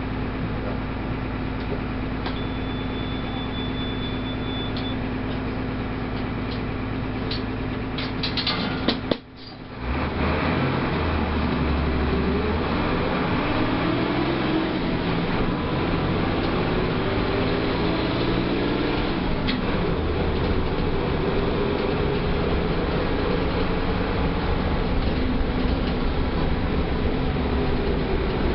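Mercedes-Benz OF 1318 bus's diesel engine running steadily at idle, with a few clicks and a brief break about nine seconds in. After that the engine note rises and falls again and again as the bus drives off and works up through the gears.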